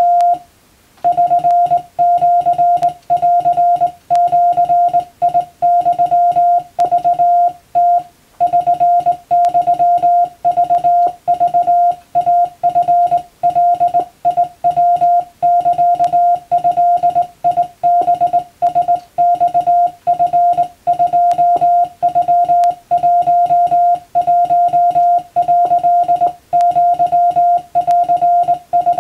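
Morse code (CW) keyed by hand as a steady tone of about 700 Hz, switched on and off in fast dots and dashes with short gaps between characters and words.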